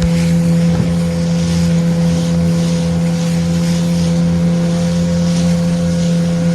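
Small motorboat's engine running at a steady cruising pitch, with wind and water hissing past the boat in swells.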